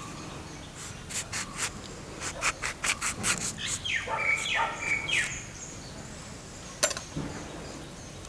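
A knife sawing through a lemon on a wooden cutting board: a run of scraping strokes, then a single knock near the end.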